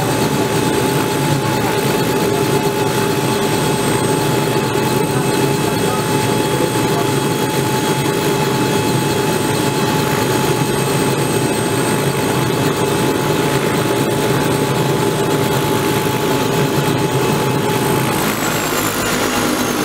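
Robinson R66 helicopter's Rolls-Royce RR300 turbine running at ground idle with the main rotor turning, a steady high whine. About eighteen seconds in, the whine starts falling in pitch as the turbine begins to spool down.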